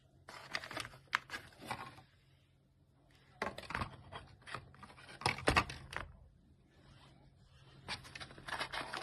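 Handling noises in three bouts: rustling and scraping with sharp clicks, as of small parts being handled and fitted together. No motor running.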